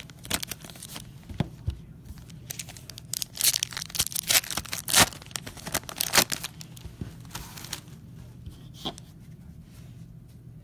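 A trading-card pack wrapper being torn open and crinkled by hand, in quick dense crackles for the first six seconds or so, then only a few scattered rustles.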